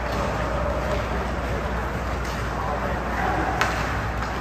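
Ice hockey rink ambience: a steady wash of indistinct voices from players and spectators, with one sharp knock about three and a half seconds in.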